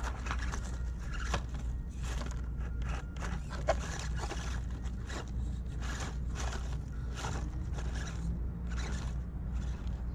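Small 1/24-scale RC crawler climbing over rocks: irregular scrapes and crackles of its tyres on stone and dry leaves, over a steady low hum.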